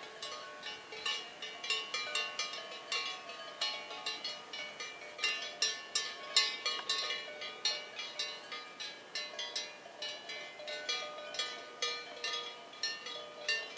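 Bells worn by grazing cows, struck irregularly as the animals move. Several bells of different pitches clank and ring on, overlapping.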